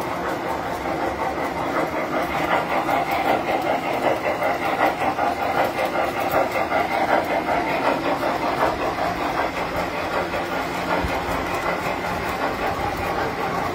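Tinplate model trains running on the layout's track: a steady hum of the running trains under a fast, continuous clatter of wheels over the rails.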